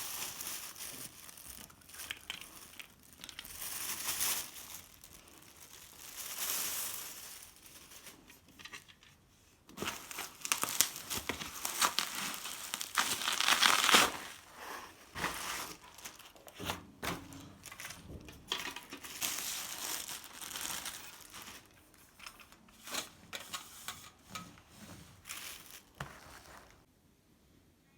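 Packaging being handled and torn open: irregular bursts of crinkling and rustling, loudest near the middle, that stop about a second before the end.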